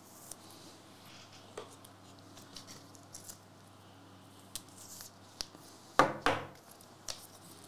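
Trading cards being handled: faint clicks and rustles, with two louder short snaps about six seconds in.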